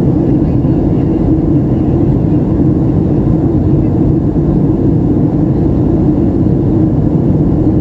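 Steady cabin noise of a Boeing 737 airliner in flight: the even, low drone of its engines and rushing air, unchanging throughout.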